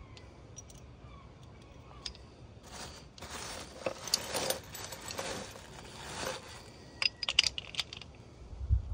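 A black plastic bin bag rustling for a few seconds as it is rummaged through, followed by a quick run of sharp metallic clinks as steel gearbox gears and shafts from a Suzuki RM85 engine are handled. A dull thump comes just before the end.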